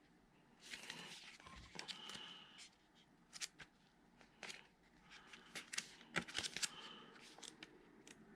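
Faint rustling of paper and plastic, with scattered light clicks: a Lego instruction booklet and parts bags being handled.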